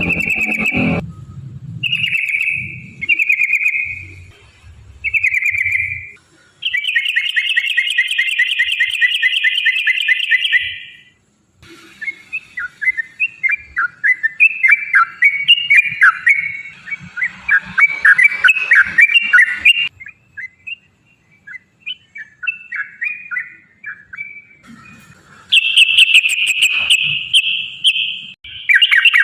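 Yellow-vented bulbul singing: short whistled phrases, then a long, rapid rolling trill, a stretch of busy chattering, and another fast trill near the end.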